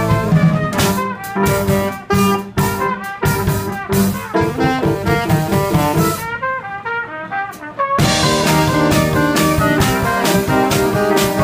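Small jazz group playing live: trumpet and saxophone playing a melody together over a drum kit. The cymbal and drum strokes thin out for a couple of seconds about two-thirds of the way through, then come back in full.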